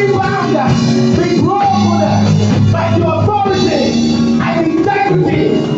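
Church worship music with singing voices over steady held low chords.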